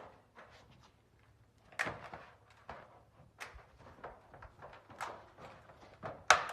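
Liberty 2-in-1 hand seam crimper working along a 26-gauge steel standing seam, making the 180-degree fold: a string of irregular sharp clicks and knocks as the tool is squeezed and moved along the seam, the loudest near the end.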